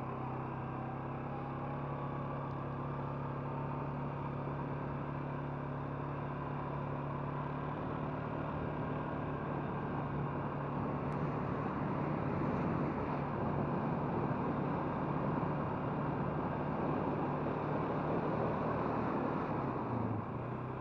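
Four-wheeler (ATV) engine running steadily under way, heard from on board, with a rushing noise that grows louder from about eight seconds in. Near the end the engine note dips briefly.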